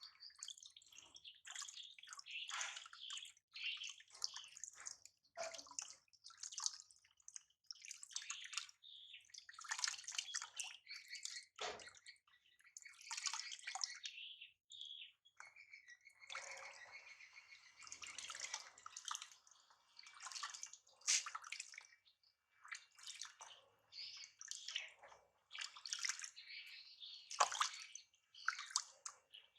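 Water splashing and pattering in irregular bursts as a baby is showered and washed.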